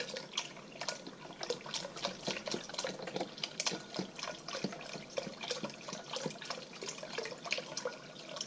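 Chicken stock pouring into a pot of soup while it is stirred. The liquid splashes steadily, with many small irregular splashes.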